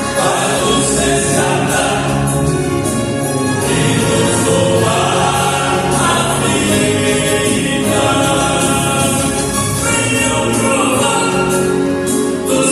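Vocal quartet singing a Portuguese gospel hymn in harmony, with long held notes.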